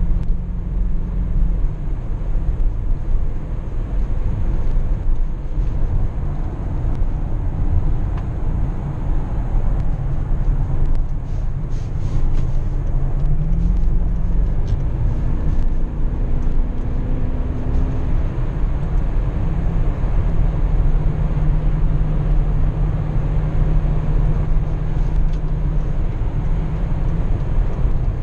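Inside the cabin of a 2005 BMW X5 4.4i, its 4.4-litre V8 drones steadily at highway cruising speed over constant road and tyre rumble. The engine note climbs once about halfway through.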